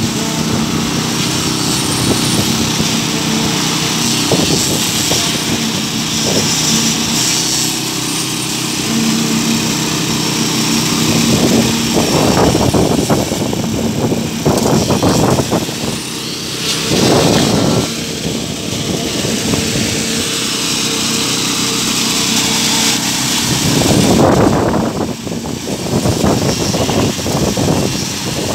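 Small petrol engine of a concrete vibrator running steadily, with concrete pouring from a pump hose onto the rebar slab. Louder rough surges of noise come several times from about twelve seconds in and again near the end.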